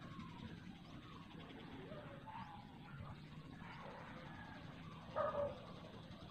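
Short animal calls over a steady outdoor background; the loudest is a brief call about five seconds in.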